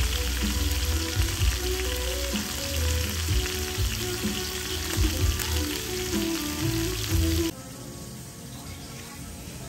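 Steak, shrimp and sausages sizzling and spitting on a hot grill pan, with music and a heavy bass underneath. About seven and a half seconds in, the sizzle and the bass cut off suddenly, leaving a much quieter room sound.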